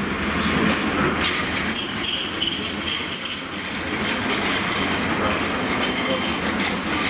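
Passenger train running past along the station tracks, a steady rumble of wheels on rail with a thin high-pitched wheel squeal held for a couple of seconds, followed by a lower squeal through the rest of the pass.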